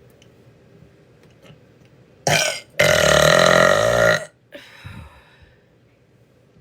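A woman burping: a short burp about two seconds in, then a long, loud, deep burp lasting about a second and a half.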